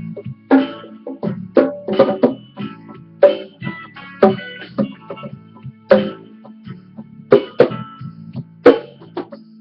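Guitar music: strummed chords struck in a loose rhythm over sustained low notes.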